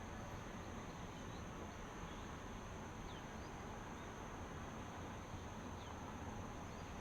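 Insects trilling steadily in one high, unbroken tone over a faint outdoor hiss, with a few faint short chirps.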